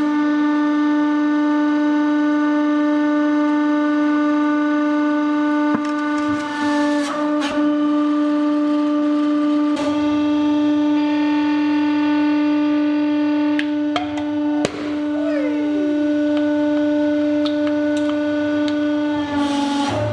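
Hydraulic press running with a loud, steady humming tone from its hydraulic pump as it crushes objects. A few sharp cracks and crunches come through it, and about two-thirds in there is a short falling whine.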